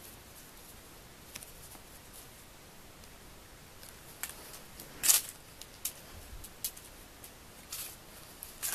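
Scattered short, crisp clicks and rustles from a cat biting and pawing at a wand toy's stick and string, sparse at first, then more frequent, the loudest about five seconds in.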